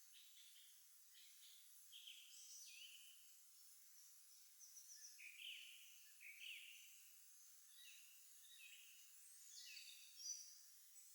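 Faint songbirds singing: many short chirped notes, some sweeping down and some up, from several birds overlapping, over a light outdoor hiss.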